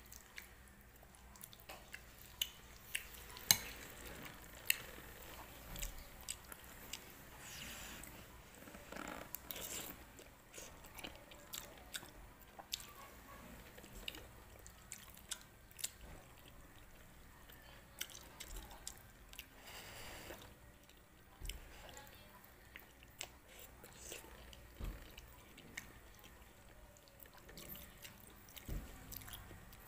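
Close-up eating sounds of macaroni soup: chewing and small wet mouth sounds, with a number of short sharp clinks of a metal spoon against the bowl, the loudest about three and a half seconds in.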